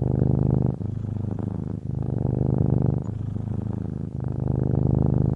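Domestic cat purring steadily, in alternating louder and softer stretches of about a second each.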